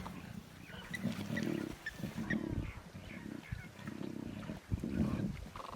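Lion cubs growling at each other while fighting over a scrap of meat: repeated low, rasping growls, each lasting about half a second to a second, with short breaks between.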